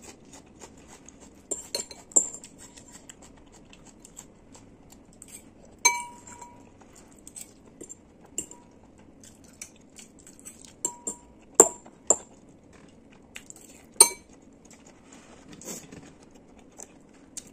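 A metal spoon clinking against a ceramic noodle bowl: a handful of sharp clinks a few seconds apart, each with a short ring.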